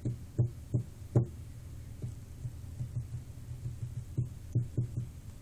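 Irregular soft knocks of hands or fingers tapping on a tabletop, several in the first second and a few more about four seconds in, over a steady low hum.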